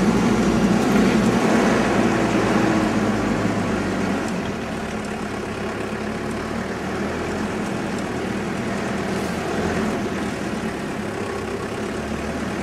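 Four-wheel-drive vehicle's engine running steadily, heard from inside the cabin while driving on a dirt track. It gets a little quieter about four seconds in.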